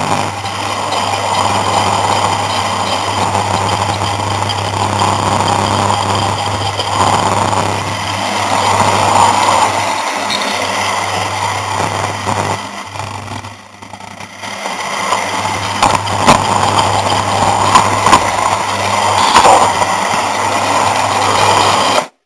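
Hornby OO gauge Class 153 model train running along its track, heard from a camera riding on board: the steady whirr of the small electric motor and wheels with a constant hum. It dips briefly about halfway, and a few sharp clicks come in the second half.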